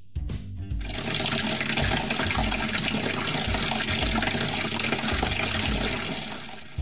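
Water pouring in a steady stream into a small clear acrylic box, filling it. The pour builds up in the first second, runs steadily, then stops shortly before the end.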